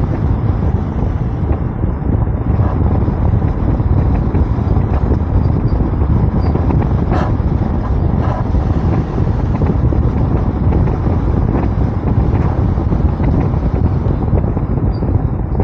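Wind buffeting the microphone of a camera mounted on the roof of a moving car: a loud, steady low rumble of air rushing past, with a few faint ticks.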